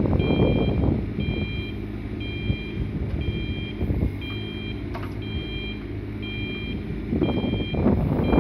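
Excavator travel alarm beeping steadily, about once a second, over the digger's running diesel engine. The engine grows louder for the first second and again near the end.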